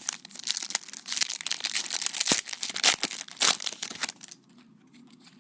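Foil trading-card pack being torn open and crinkled, a dense crackle of plastic wrapper for about four seconds that stops near the end.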